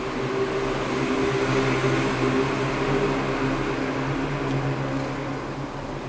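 City street traffic: a steady rumble with a low engine hum that swells in the first seconds and eases off toward the end.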